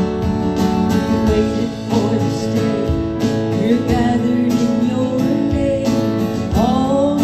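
Worship band music led by a strummed acoustic guitar, with sustained chords and an even strumming rhythm.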